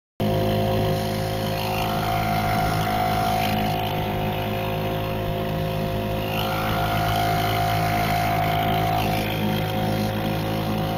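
1953 Firestone 3.6 hp two-stroke outboard motor (built by Scott-Atwater) running steadily under way, pushing the boat along with water rushing in its wake. The sound cuts in abruptly a moment in.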